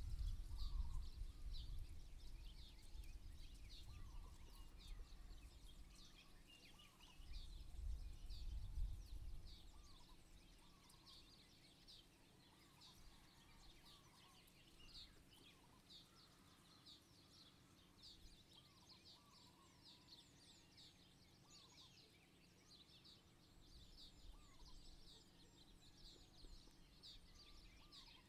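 Birds chirping softly, with many short high chirps several times a second and an occasional lower, hooked call. A low rumble is heard at the start and again about eight seconds in, then dies away.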